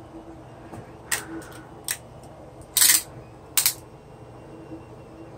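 A few sharp clicks and short scraping rustles from a mirror panel being handled and measured on a 3D printer's bed, the loudest about three seconds in, over a steady low hum.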